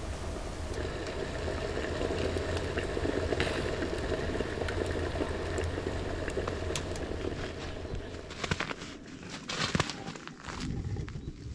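Wood fire burning: a steady hiss with frequent sharp crackles and pops. About eight seconds in it gives way to quieter rustling and scattered clicks.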